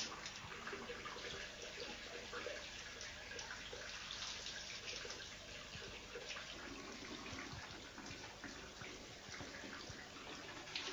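Water running or splashing, a fairly quiet, steady wash with many small irregular drips and splashes.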